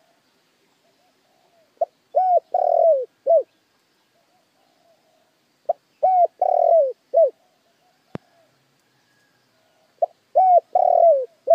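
Spotted dove cooing in three phrases, about four seconds apart. Each phrase is a few short coos around a longer rolled coo. It is the call of a trained lure dove, used to provoke wild doves into answering. A single sharp click falls between the second and third phrases.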